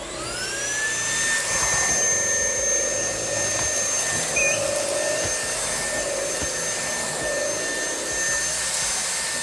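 Wyze cordless stick vacuum switched on: its motor spins up with a whine rising in pitch over the first second, then runs steadily with a high whine over airflow noise.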